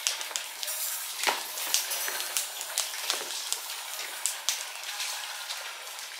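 Rubbish fire burning paper and household trash, a steady crackle with frequent sharp, irregular pops.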